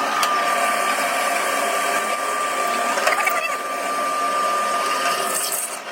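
A power tool's electric motor running at a steady high speed, a constant whine over a hiss, dying away near the end.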